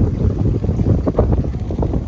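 Strong wind buffeting the microphone: a loud, gusty low rumble that flutters unevenly.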